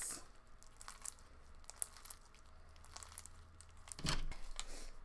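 Glossy slime mixed with foam beads being stretched and squeezed by hand, giving faint scattered crackles and bubble pops, with a louder burst of crackling about four seconds in.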